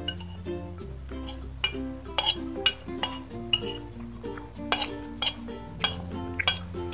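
Metal spoon and fork clinking and scraping against a ceramic plate while eating, a dozen or so sharp irregular clinks. Background music with sustained chords plays throughout.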